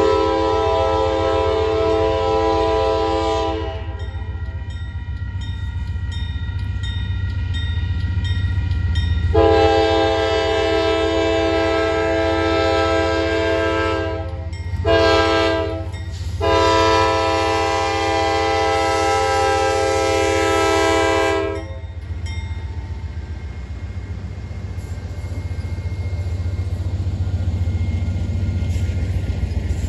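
Air horn of a Norfolk Southern GE diesel locomotive sounding long, long, short, long blasts: the grade-crossing signal. Under the horn runs the low rumble of the approaching freight train, which grows louder near the end as the locomotives pass close by.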